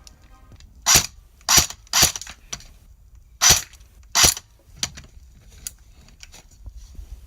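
Airsoft gun firing five single sharp shots in two quick groups, followed by a few faint clicks.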